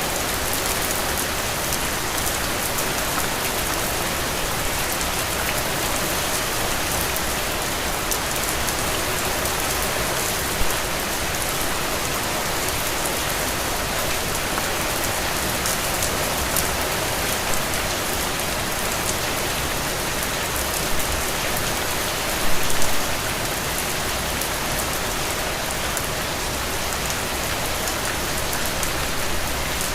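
Steady rain falling on a surface, with a few louder drop or splash sounds, the largest a short cluster about two-thirds of the way through.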